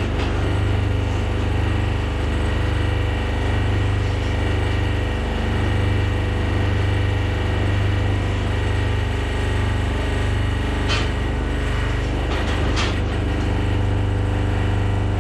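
A vintage wool press's hydraulic pump unit running steadily with a low hum that wavers slowly in loudness, two sharp metallic clanks near the end.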